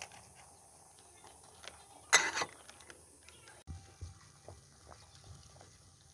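A brief loud noise about two seconds in, then the faint, irregular bubbling of a pot of water with corn cobs boiling on a portable gas stove.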